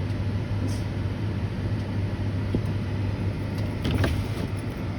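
Steady low hum of a running vehicle engine over a background of noise, with a light knock about four seconds in. No siren tone is sounding.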